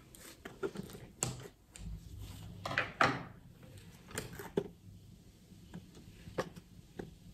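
Kitchen scissors snipping and clicking as sponge cake is trimmed, mixed with light clicks and taps of cake pieces being handled on a plate; a brief scrape about three seconds in is the loudest sound.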